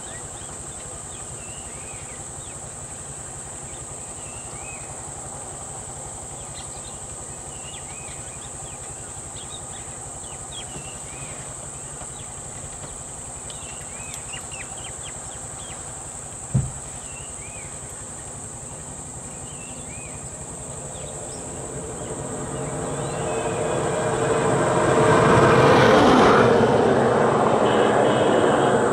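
A motor vehicle approaching and passing close by, its engine and tyre noise swelling from about two-thirds of the way in to become the loudest sound near the end. Before that, a steady high insect drone and scattered bird chirps, with a single low thump about halfway through.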